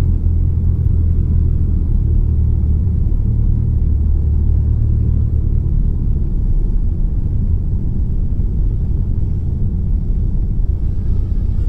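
Cessna 172's engine and propeller droning at part power on final approach for landing, heard inside the cabin. The low hum holds steady, then weakens about halfway through.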